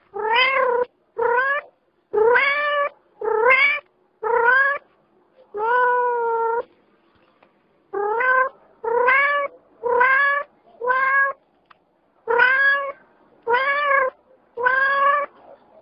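A cat meowing over and over in an even rhythm, about thirteen meows of much the same shape, with one held longer about six seconds in.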